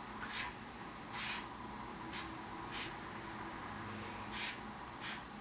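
A pen scratching on paper in about six short, unevenly spaced drawing strokes.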